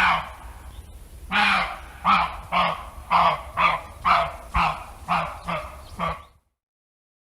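An animal calling: one longer call at the start, then a quick, even run of about ten short calls, roughly two a second. The calls stop abruptly a little after six seconds in.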